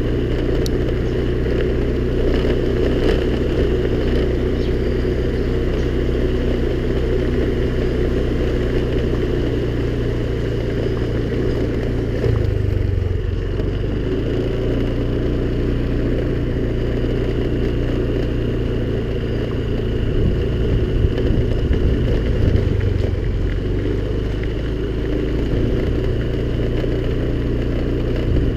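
Small Honda scooter engine running steadily while riding, with a brief change in its note about twelve seconds in.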